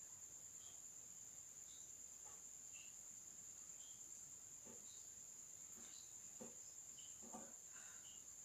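Near silence, with a faint, steady, high-pitched insect trill throughout and a few faint pencil strokes on paper in the second half.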